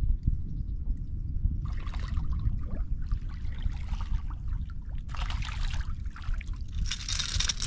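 Water splashing in short bursts as a hooked walleye is played to the side of the boat, the loudest splashing near the end, over a steady low rumble.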